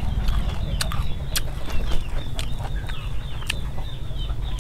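Eating at the table: a few sharp clicks of a metal spoon against plastic and china bowls, about one every half-second to second, over a steady low rumble, with small birds chirping faintly.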